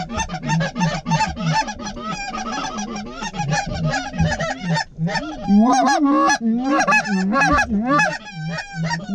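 Goose honking and clucking: many rapid, overlapping calls, some sliding in pitch, growing louder about five and a half seconds in.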